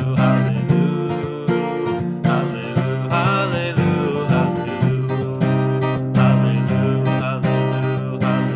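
Acoustic guitar strummed in a steady rhythm, a strum about every three-quarters of a second.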